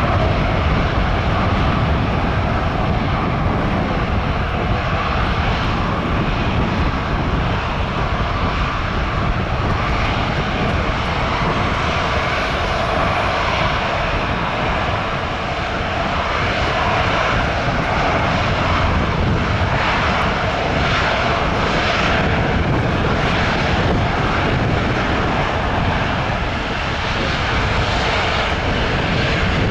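Airbus A350-1000's Rolls-Royce Trent XWB jet engines running steadily at low taxi power as the airliner taxis and turns onto the runway before its takeoff.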